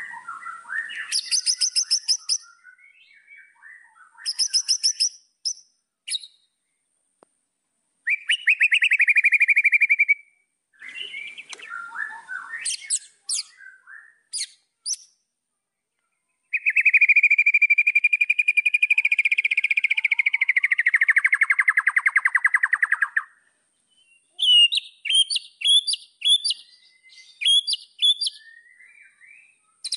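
White-rumped shama (murai batu) singing a varied song of rapid buzzy trills, a long trill about halfway through that slides downward in pitch, and a run of sharp high chips near the end.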